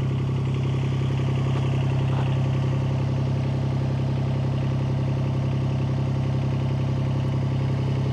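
Yanmar mini excavator's diesel engine idling steadily, an even low hum.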